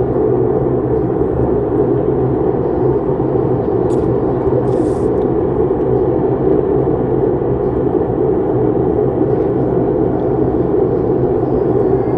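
A steady, low droning rumble in the air that does not let up. The recorder takes it for a jet from a nearby air force base, though it doesn't sound like any jet they have heard.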